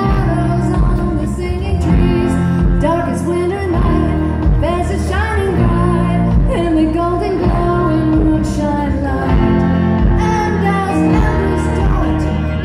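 Live band playing a song: a woman singing lead over guitar, drums and keyboard.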